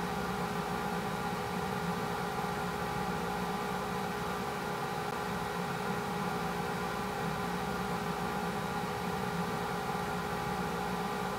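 A steady, unchanging machine hum with several fixed tones over a constant hiss, like a fan or small motor running.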